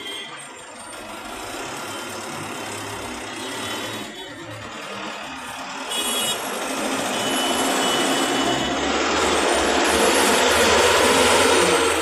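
Dense city road traffic heard from a vehicle moving in it: a continuous rush of engines and tyres that grows louder through the second half as the traffic gets moving, with a few short high beeps about six and seven seconds in.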